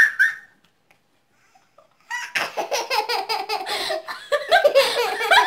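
A young woman and a little girl laughing hard: a short loud burst at the start, a pause of about a second and a half, then a long run of pulsing laughter.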